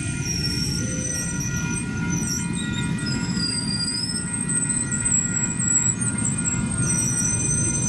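Circus train passenger cars rolling past, with a steady low rumble of steel wheels on rail. Thin, high-pitched wheel squeals waver in and out above the rumble.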